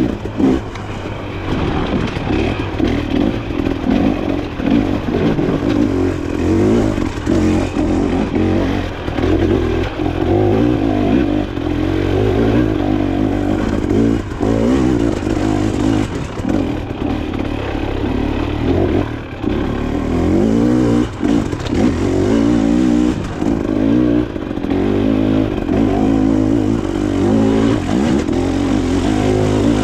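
Dirt bike engine running hard while ridden off-road, its revs rising and falling constantly with the throttle and gear changes, with knocks and clatter throughout.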